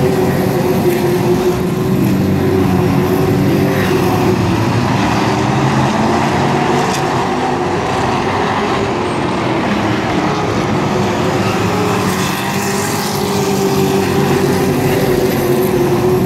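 A pack of race trucks running at speed around a short asphalt oval, several engines blending into one loud, steady drone that swells and eases a little as they pass.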